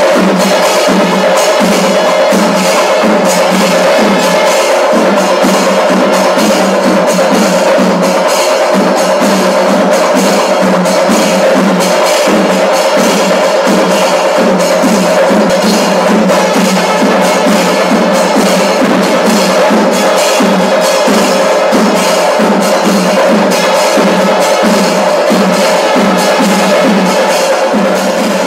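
Pandi melam, the Kerala temple percussion ensemble of chenda drums and ilathalam cymbals, playing loud, dense, fast drumming, with a steady held tone running underneath.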